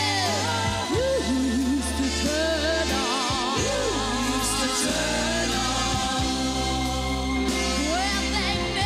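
Women singing a soul-pop song live with band backing. Held notes carry a wide vibrato over a steady bass line.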